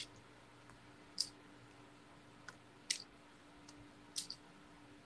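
Faint, irregular light clicks and taps from small tools and paper being handled in paper quilling, a few strong ones among softer ticks, over a faint steady hum.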